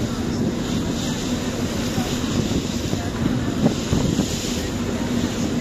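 Passenger ferry's engine droning steadily with a constant low hum, mixed with wind on the microphone and faint background voices.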